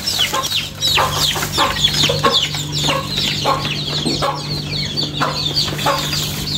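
Chickens clucking at feed while chicks peep in many quick, falling high chirps, over a steady low hum.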